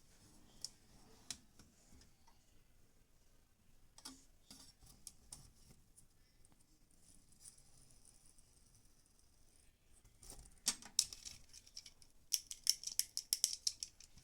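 Small hard objects being handled, with scattered clicks and rustling, then a quick run of sharp clicks near the end.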